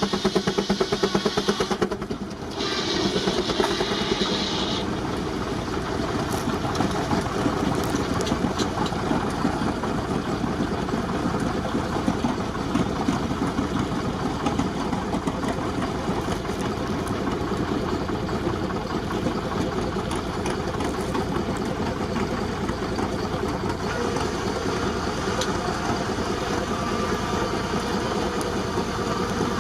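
19-65 Baker Uniflow steam traction engine running under belt load, driving a sawmill, with a steady rapid pulsing. The sound dips and changes briefly about two seconds in.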